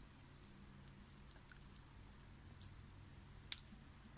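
Faint small clicks and soft eating sounds over quiet room tone, with one sharper click about three and a half seconds in.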